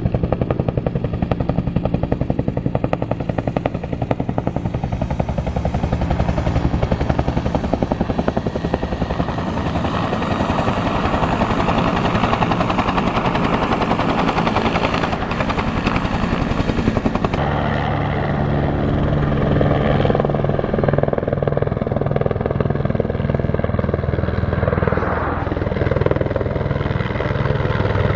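A two-bladed Bell utility helicopter flying low overhead, its main rotor beating rapidly under a turbine whine. About two-thirds of the way through the sound changes abruptly to a smaller three-bladed AS350-type helicopter climbing away, with a steadier turbine and rotor drone.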